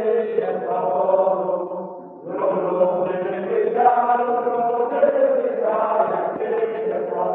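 A group of people singing together, with a short break about two seconds in before the singing resumes.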